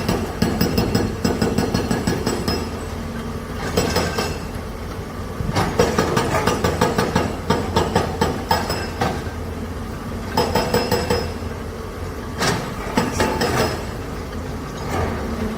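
A heavy machine's engine drones steadily under repeated bursts of metallic clanking and rattling, several clusters of rapid knocks separated by short lulls.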